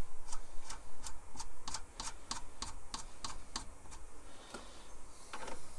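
A run of light metallic clicks, about three a second, for the first few seconds, from hand work fitting a lock nut onto the cross-slide feed screw of an Atlas 10-inch lathe.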